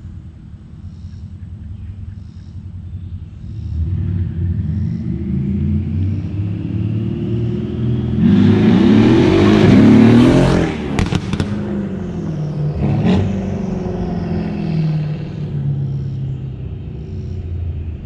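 Mercedes-Benz E63 AMG's twin-turbo V8, breathing through downpipes, a custom X-pipe and exhaust cutouts, accelerating hard. The note builds and rises in pitch until it is loudest about eight to ten seconds in. A few sharp cracks come around eleven seconds, and another near thirteen, as the note falls away and settles to a steadier run.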